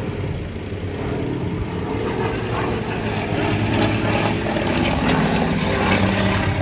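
Engine of a low-flying firefighting aircraft passing overhead just after a water drop, growing louder over the first few seconds and staying loud to the end.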